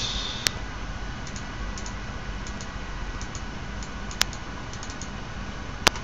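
Scattered clicks of a computer mouse and keyboard: three sharp clicks, about half a second in, just after four seconds and near the end, with fainter ticks between them, over a steady low background hum.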